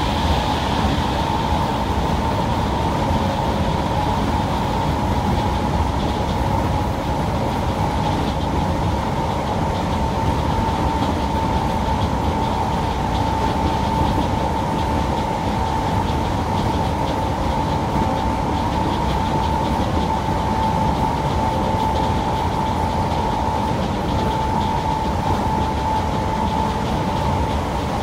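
Onboard running sound of a BR-built Class 319 electric multiple unit at steady high speed: a constant rumble of wheels on the track, with a steady high whine that dips slightly in pitch near the end.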